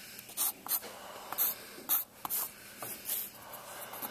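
Pencil scratching on paper in a series of short sketching strokes, about six quick strokes at irregular intervals.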